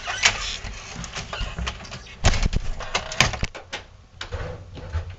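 A series of irregular knocks and clatters, with a dense loud cluster about two seconds in.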